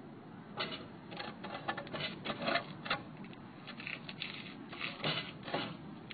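Irregular scuffs, scrapes and light knocks against a roof, picked up close by a phone lying on the roof surface, coming in clusters of several a second at times.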